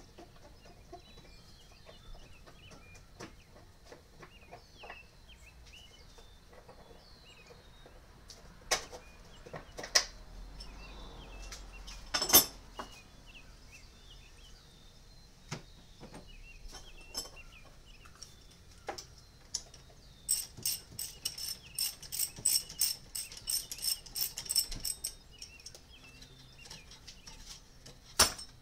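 Hand tools working on the engine torque strut bolts: a few sharp metal clinks, then a run of rapid ratchet-wrench clicks for about five seconds. Birds chirp faintly in the background.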